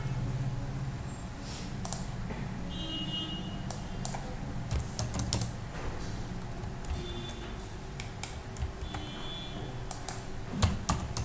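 Computer keyboard keys and mouse buttons clicking at irregular intervals, over a low steady hum.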